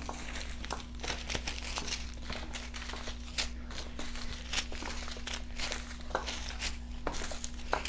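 Small plastic zip-lock bags of diamond-painting drills being picked up and shuffled, crinkling irregularly with many quick rustles.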